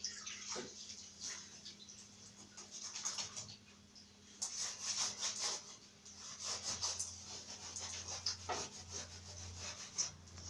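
Small scrubbing brush rubbing a fan's protective grille with detergent, in quick, irregular strokes with brief pauses.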